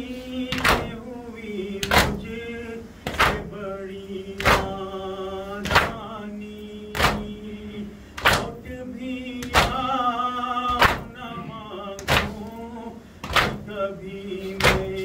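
Shia matam: a group of men slapping their chests in unison, one sharp slap about every 1.25 seconds, keeping time under a man chanting a noha lament in long, held melodic lines.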